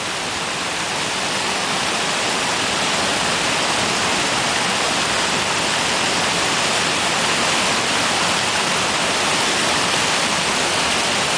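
Small mountain stream pouring over boulders in a short cascade: a steady rushing of water that grows a little louder over the first couple of seconds and then holds.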